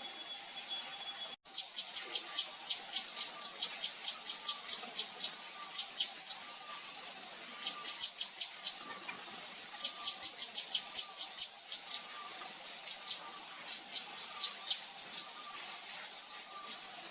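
Javan fulvetta calling: runs of short, sharp, high chips, several a second, broken by short pauses. A brief break in the sound comes about a second and a half in.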